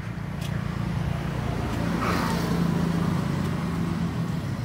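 Engine hum of a passing motor vehicle, swelling to its loudest a little past halfway and then easing off, over a steady low drone.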